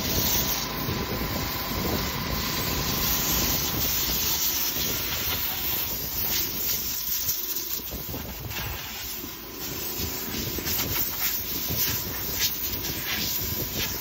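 Compressed air hissing from a hand-held blow gun in long and short blasts, blowing chaff and dust off a MacDon draper header's belts and reel during post-harvest cleanup. A steady low rumble runs underneath.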